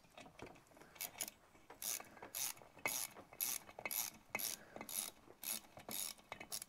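Small socket ratchet clicking in short back-strokes, about two bursts a second, as a bolt is undone on an engine's rocker assembly.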